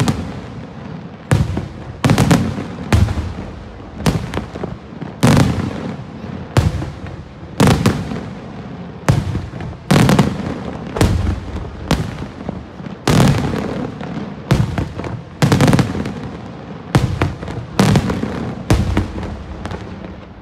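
Daytime aerial firework shells bursting in quick succession, a loud bang about once a second, each followed by a rolling rumble.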